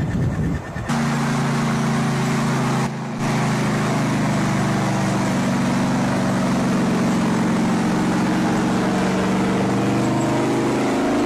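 A vehicle engine running steadily, cutting in about a second in, with a brief drop in level near three seconds.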